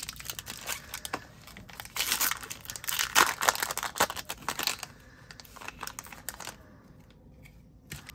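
Foil wrapper of a Disney Lorcana booster pack being torn open and crinkled by hand, the crinkling loudest from about two to five seconds in. It then thins to a few faint clicks as the cards are slid out, and goes quiet near the end.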